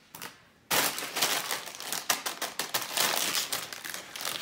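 Plastic Ruffles potato-chip bag crinkling as it is handled, starting suddenly under a second in as a dense run of crackles.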